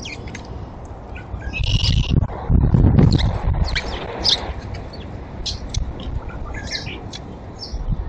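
Small birds chirping: many short, high chirps and calls scattered throughout, over a low rumble that swells from about two to four and a half seconds in.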